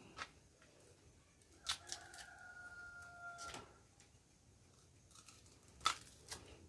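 Sugarcane rind being torn off with the teeth: a handful of short, sharp cracking tears, the loudest about six seconds in. A faint held tone sounds in the background from about two to three and a half seconds in.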